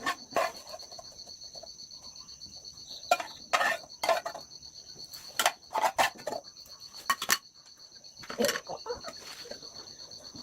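Scattered sharp knocks and clatters, several in quick clusters, over a steady high pulsing insect trill.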